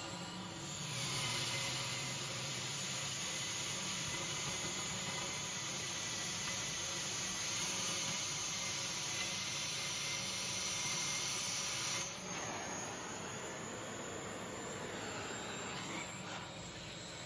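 Air carbon arc gouger cutting old weld out of a steel roller's end: a steady, loud hiss of the air blast with the arc, rising about a second in. It drops to a quieter hiss about twelve seconds in.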